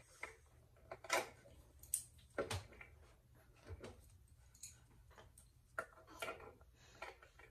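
Faint, irregular clicks and taps from a cabinet knob and its screw being twisted loose by hand and knocking against the wooden drawer.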